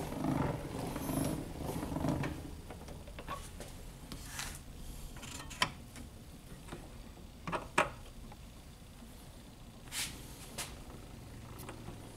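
Crank of a Columbia table-model phonograph being turned by hand to wind its spring motor, a low grinding of the winding gears for the first two seconds or so. Then several separate clicks and knocks as the machine is handled.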